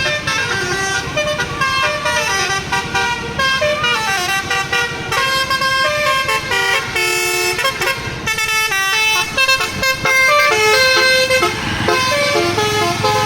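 Tour bus basuri telolet horn playing a tune: a quick run of pitched notes that step up and down.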